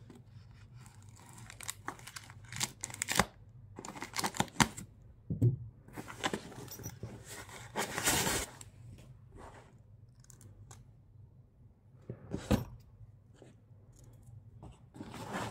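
Plastic packaging wrap being cut with scissors and torn and crinkled off, in irregular rustling bursts with a few sharp snaps.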